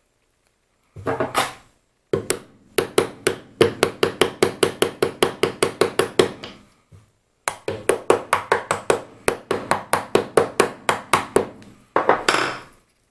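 Rapid, regular metallic clicking, about six to seven clicks a second, in two runs of several seconds each, with a short scrape before the first run and after the second, from hand work on a mini lathe's topslide as it is reassembled.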